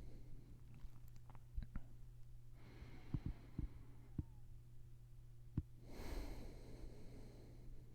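Slow, soft breathing close to the microphone, two breaths about four seconds apart, the second one louder. Small sharp knocks and rustles from the microphone mount and pillow come in between, over a faint steady low hum.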